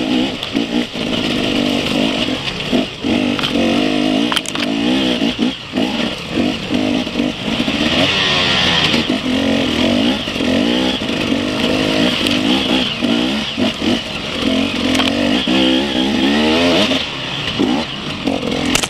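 Enduro dirt bike engine, heard from on board, revving up and down over and over as the bike is ridden along a rough dirt trail, with occasional short knocks.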